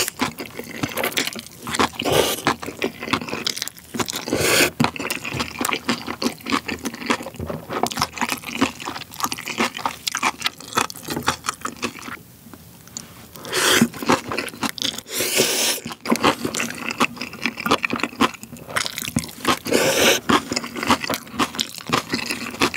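Close-miked eating: Chapagetti noodles slurped off chopsticks and napa-cabbage kimchi chewed, with steady wet chewing clicks and smacks. A loud slurp comes at the very start, with more longer slurps in the middle and near the end.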